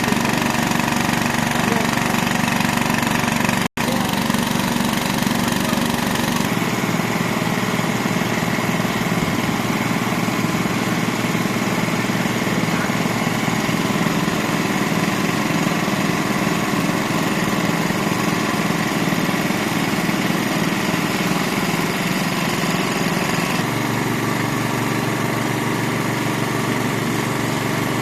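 Small engine of a well-drilling machine running steadily. The sound cuts out for an instant near 4 s, and its pitch shifts slightly twice, around 6 s and again near 24 s.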